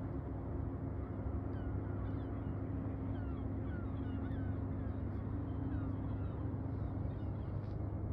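A steady low machine hum with a couple of steady tones in it, over which birds chirp in short, scattered calls.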